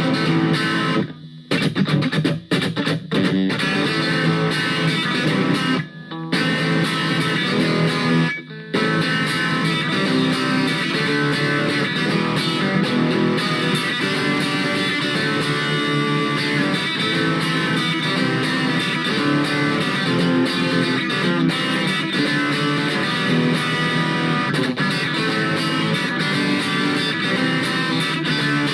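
Distorted electric guitar, a Fender Stratocaster played through a Blackstar Superfly amp, riffing and strumming chords. Playing stops briefly about a second in, around six seconds and around eight and a half seconds, then runs on unbroken.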